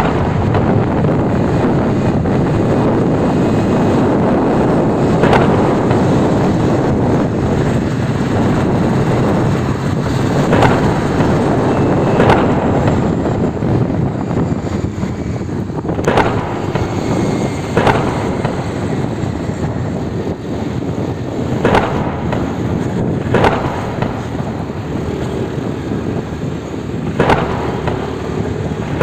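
Wind buffeting the phone microphone over road and engine noise from a moving two-wheeler, with about eight sharp knocks scattered through it.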